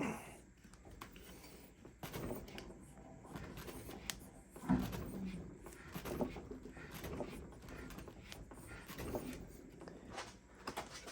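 Irregular metal clunks and scraping from a seized brake-shoe pivot in a motorcycle drum brake hub as it is worked. The part is badly frozen in place. The loudest knock comes about five seconds in.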